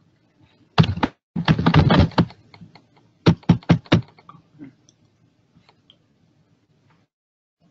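Typing on a computer keyboard: a quick run of key clicks, a longer dense flurry, then five separate keystrokes, after which only a few faint clicks follow.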